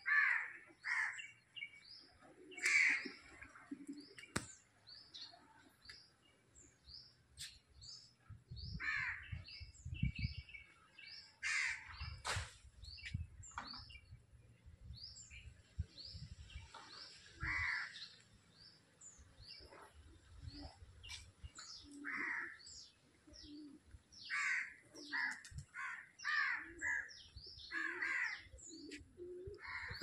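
Crows cawing again and again, with smaller birds chirping high between the caws. A low rumble on the microphone comes and goes in the middle stretch.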